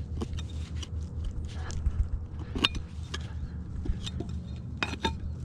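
Digging in soil around a buried iron target: scraping and crunching of dirt, with several short sharp clicks and knocks.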